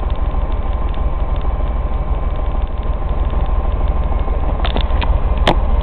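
Semi truck's diesel engine idling, a steady low rumble heard from inside the cab, with a few sharp clicks or rattles near the end.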